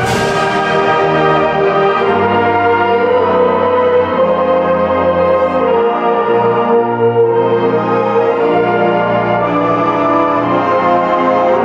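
Community concert band of brass and woodwinds playing a slow passage of sustained chords that change every couple of seconds, the brass prominent.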